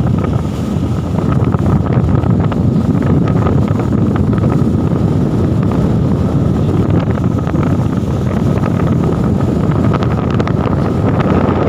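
Steady loud rushing noise with wind buffeting the microphone, with scattered faint clicks.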